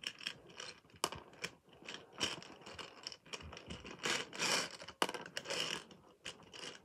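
Small plastic lottery balls clattering and rattling in a toy lottery draw machine as they are mixed: a run of irregular sharp clicks with busier bursts of rattling about four to five seconds in.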